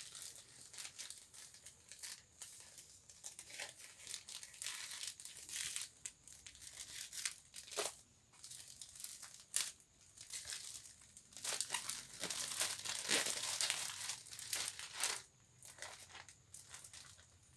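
Plastic parcel packaging being unwrapped by hand: irregular crinkling and rustling, with tearing and a few sharp snaps. It is busiest and loudest about twelve to fifteen seconds in.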